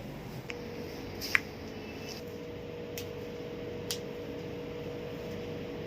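Quiet room tone with a faint steady electrical hum that starts about half a second in, joined by a second hum a little later. A few small clicks sound through it, the sharpest about a second in.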